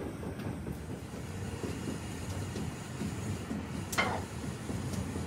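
Steady low rumble of workshop machinery, with one sharp metallic clink about four seconds in and a few fainter clicks.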